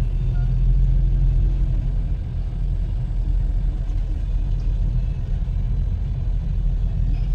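Steady low rumble of a vehicle on the move, engine and road noise, with no sudden events.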